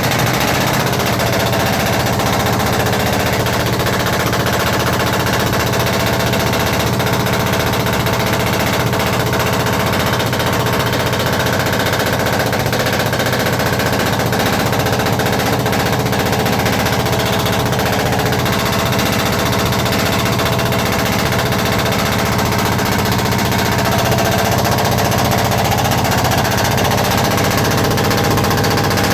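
Perkins 1103 three-cylinder diesel engine running steadily with a rapid, hard clatter. This is the sign of a misfire problem at the intake manifold.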